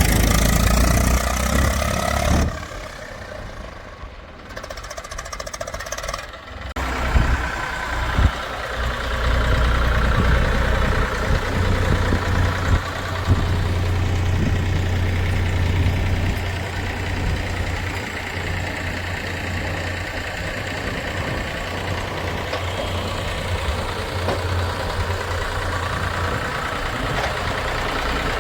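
Heavy diesel engine of farm or earthmoving machinery running steadily. It goes abruptly quieter a couple of seconds in and comes back about seven seconds in, with a few sharp knocks over the next several seconds.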